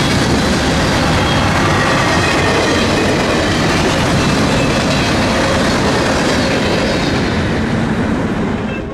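Freight train cars rolling past close by: a steady, loud rush of steel wheels on rail with some clickety-clack and a faint high wheel squeal, easing off slightly near the end.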